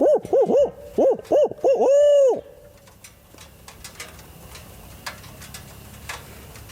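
Barred owl hooting: a quick run of short hoots, each rising and falling in pitch, ending in one longer drawn-out hoot about two and a half seconds in, then a faint steady background.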